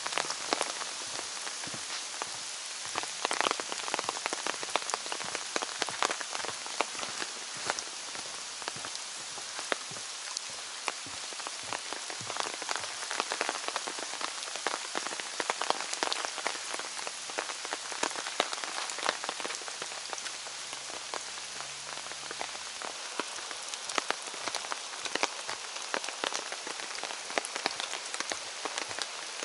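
Steady rain falling through the forest, with many sharp drop taps close by over the even hiss.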